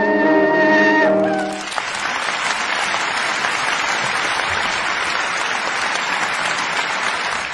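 A piece of music ends on a held chord, then an audience applauds steadily.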